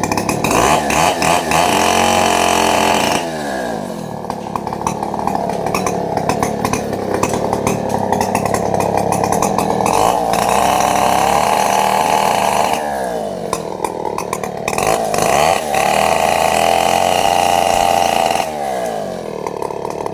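Two-stroke chainsaw running hard at high revs, its engine note sagging and climbing back up several times, about three seconds in, around thirteen and fifteen seconds, and again near the end, as the throttle and the cutting load change.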